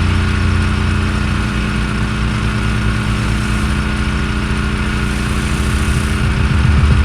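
Pressure washer engine running steadily, its low hum shifting slightly in pitch a couple of times.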